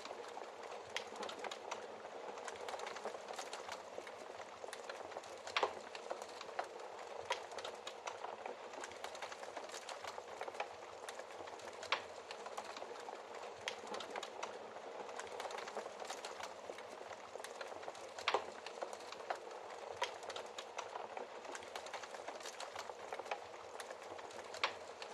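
Wood fire crackling in a fireplace: a steady soft hiss dotted with many small pops, with a louder snap about every six seconds.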